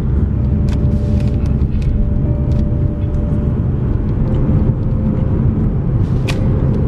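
Steady low rumble of road and engine noise inside a moving car, with a faint steady hum and a few light clicks.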